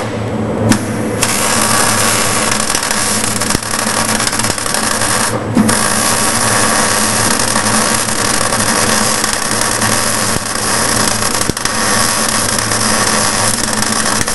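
Electric arc welder running, a steady loud crackle and sizzle of the arc over a low electrical hum. The arc strikes fully about a second in and breaks off briefly about five and a half seconds in before resuming.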